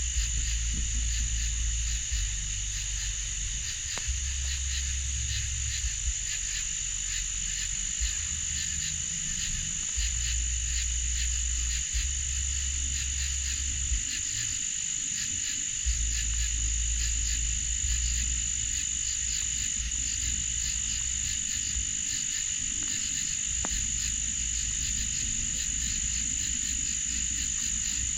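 Night chorus at a pond: frogs calling over a steady, high insect drone, with a low rumble that comes and goes.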